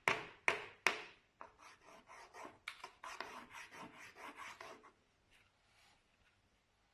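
Chalk scratching on a small wooden-framed chalkboard as a baby scribbles: a few hard strokes about two a second, then quicker, lighter scratching that stops about five seconds in.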